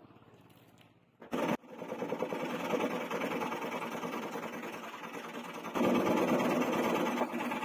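A power saw runs, and from about six seconds in it gets louder as the blade crosscuts a strip of hardwood. A short loud burst comes a little over a second in.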